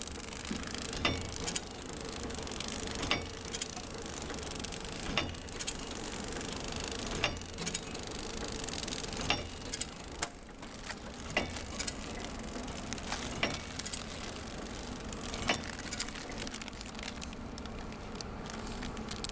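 Ice lolly packing machine running, wrapping lollies in film: a steady mechanical hum with a sharp click about every two seconds and lighter ticks between.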